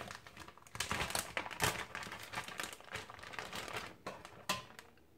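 Plastic Ziploc bag crinkling and rustling in irregular crackles as hands work it open, dying away about four and a half seconds in.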